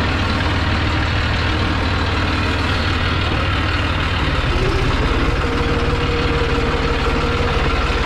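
John Deere utility tractor's diesel engine running as the tractor drives along, heard from the driver's seat: a loud, steady low engine note with a fast firing pulse. A steady whine joins in about halfway through.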